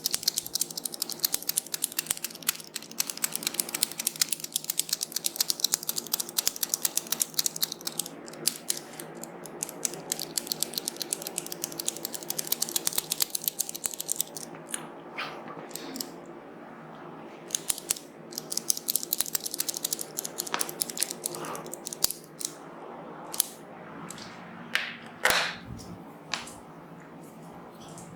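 Head massage: fast, dense crackling clicks from fingers working the hair and scalp. They come in long runs that thin out into a few separate, louder clicks in the second half.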